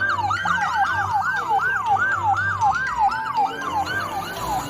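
Ambulance siren yelping: a fast rising-and-falling wail repeating about three times a second, growing weaker near the end.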